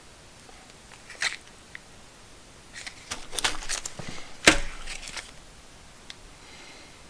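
Small packs of nuts and bolts being handled and set down: a sharp click a little over a second in, then a run of plastic crinkles and clicks, with the loudest knock about four and a half seconds in.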